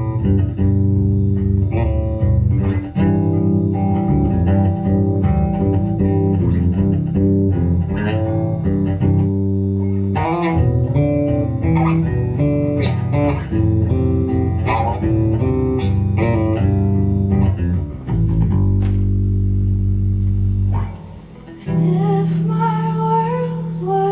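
Live band playing an instrumental passage led by guitars over bass guitar, with a chord held for a few seconds and a short drop in level near the end.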